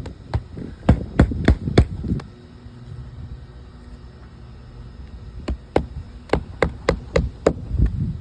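Hammer blows driving roofing nails into a replacement asphalt shingle: a quick run of about six strikes, a pause of about three seconds, then another run of about nine, roughly three a second.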